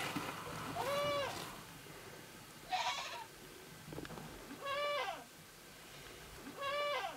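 Flock animals bleating: four short cries, each rising then falling in pitch, about two seconds apart.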